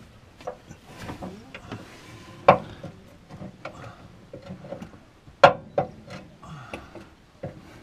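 Scattered knocks, clicks and rubbing of hands working on the Land Rover's exhaust downpipe where it has come off the manifold, with two sharper knocks about two and a half and five and a half seconds in.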